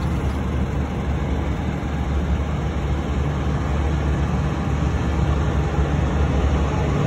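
Low, steady rumble of a twin-engine jet airliner's engines as it rolls along the runway, slowly growing louder.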